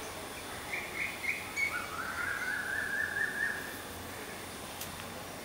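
A bird calling over a steady background hiss: a few short chirps about a second in, then one longer wavering call lasting about a second and a half.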